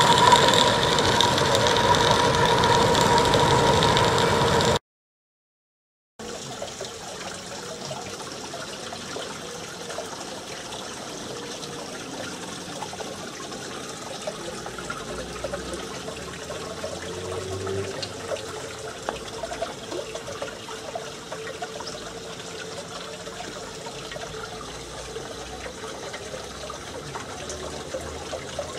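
Model live-steam locomotive running on the track, a busy hiss with a steady high ringing tone. It cuts off suddenly after about five seconds, and after a moment of silence a much quieter, even background hiss follows.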